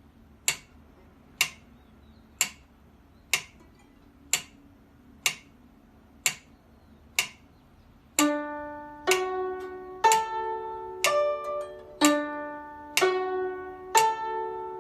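Metronome ticking about once a second for eight beats, then a guzheng comes in about eight seconds in, plucking a broken chord one note per beat, each note ringing on.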